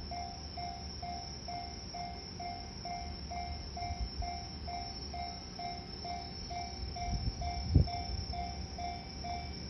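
Japanese level-crossing warning bell ringing steadily, about three strokes a second. Under it, the low rumble of a train builds, with one sharp thump about eight seconds in.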